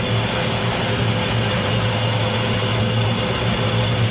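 Selective soldering machine running, with its solder nozzle working under the board: a steady low hum with a constant hiss over it.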